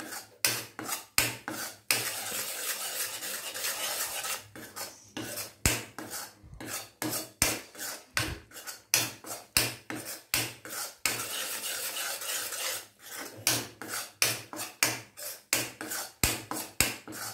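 A spoon scraping and stirring thick badam burfi mixture round a stainless-steel kadai, in quick repeated strokes about twice a second with a few longer continuous scrapes. The mixture is being cooked down until it separates from the sides of the pan.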